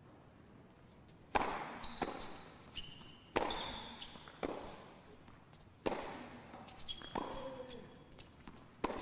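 Tennis rally on a hard court: four sharp racket strikes on the ball a couple of seconds apart, each followed by a softer ball bounce, with brief high sneaker squeaks on the court between shots.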